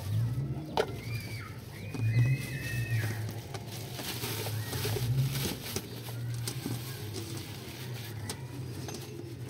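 A few short high bird calls in the first three seconds over a low steady hum, with scattered light clicks.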